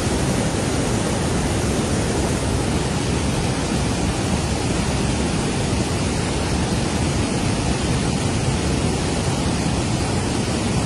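Fast-flowing flood water rushing by, a steady, unbroken roar of water.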